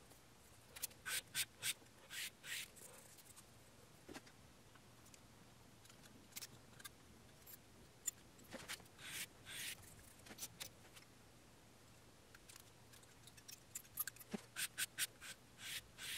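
Thin steel feeler gauges being picked up and set down on a granite surface plate: light metallic clicks and short scrapes, in small clusters near the start, around the middle and near the end.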